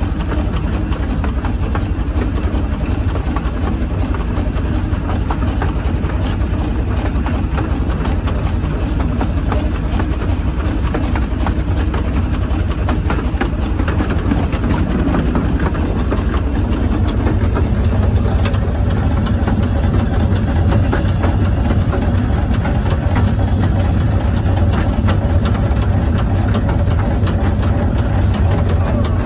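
Miniature steam locomotive running along the line, heard from its footplate: a steady rumble of the engine and its wheels on the rails.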